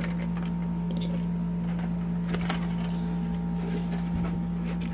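A steady low electrical hum, like a fan or appliance running, with a few faint handling clicks and rustles.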